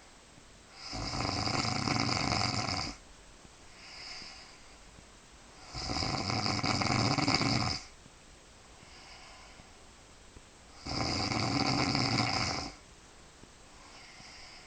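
A woman snoring loudly: three long snores about five seconds apart, each lasting about two seconds, with a faint breath between them.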